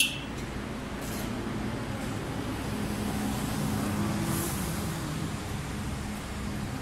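City street traffic: cars running on the road, with one vehicle going by about halfway through, and a sharp click at the very start.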